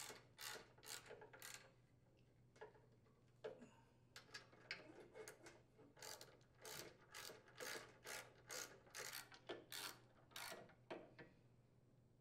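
Faint clicking of a hand socket ratchet driving bolts home, in runs of short strokes about two a second with brief pauses between runs.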